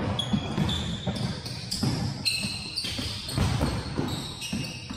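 Athletic shoes squeaking on a hardwood gym floor in short high squeals, several times, over the thuds of footfalls and a soccer ball on the boards.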